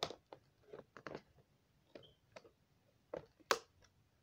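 Scissors snipping through toy packaging: a scattered run of short, sharp clicks and snips, the loudest about three and a half seconds in.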